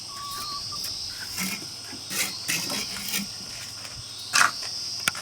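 Steady, high-pitched chorus of insects, with irregular sharp knocks and clatters over it, the loudest about four and a half seconds in.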